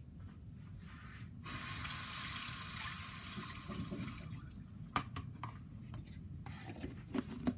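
Kitchen tap running for about three seconds and then shut off, followed by a few light clicks and knocks.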